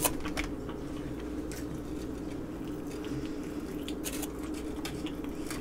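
Close-up chewing and wet mouth sounds of a person eating chicken wings, with scattered sharp clicks and smacks, the loudest right at the start and a cluster about four seconds in. A steady low hum runs underneath.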